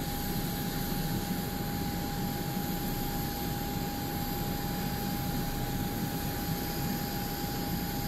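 Steady noise of a parked jet airliner being de-iced: a constant whine over an even rumble and hiss from the aircraft and the de-icing truck spraying it, unchanging throughout.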